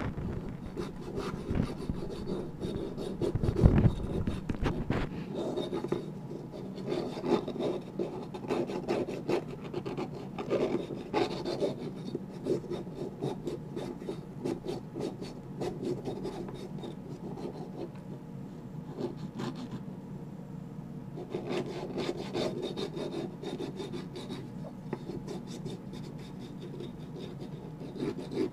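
An emery board rasping against a monkey's fingernails in runs of quick, irregular strokes with short pauses between them. There is a low thump about four seconds in.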